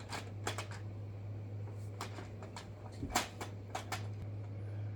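Handling noises from the plastic toy corn chopper and its packaging: a few scattered clicks and rustles, over a steady low hum.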